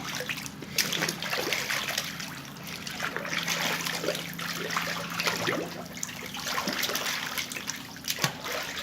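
Water trickling and dribbling with small splashes and bubbly blips as toy sea creatures are moved about in it.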